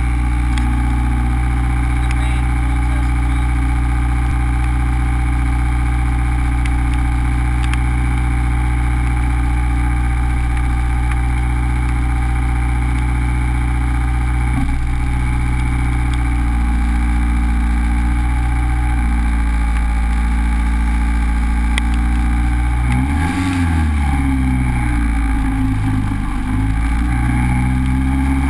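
Honda Civic engine running at a steady idle, then revving up and down from about three-quarters of the way in as the car gets moving.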